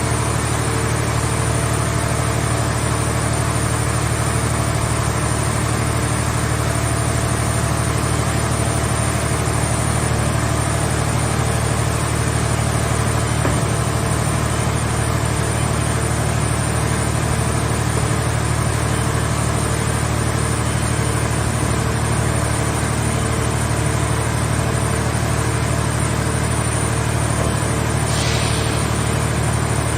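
Scrap car-shell baling press running with a steady, unchanging mechanical hum from its hydraulic power unit, with a brief hiss about two seconds before the end.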